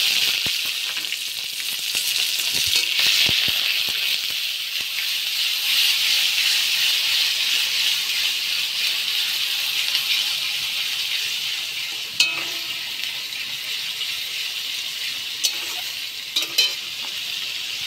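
Onion paste sizzling in hot oil in a kadai while being stirred with a spoon; the sizzle is strongest for the first dozen seconds, then eases a little. A few sharp clinks come near the end.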